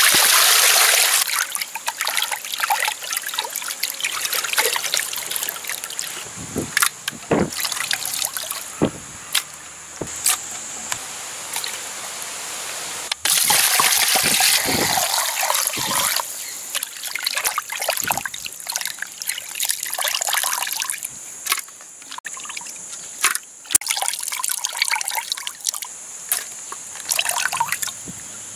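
Water poured over cut fish pieces in a clay pot, splashing and trickling, with hands rubbing and turning the wet pieces as they are washed. The pouring is loudest at the start and again about halfway through, with short splashes and drips in between.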